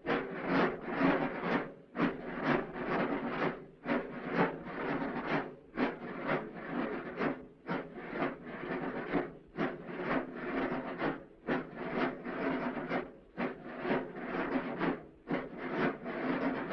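Calanda drums, a massed band of drums beating a continuous pulsing roll at about two to three beats a second. It comes from an old, worn film soundtrack.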